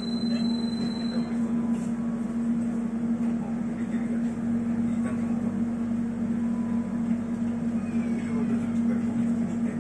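Electric airport train carriage standing at a station with its doors open, giving a steady low hum. A high steady tone cuts off about a second in.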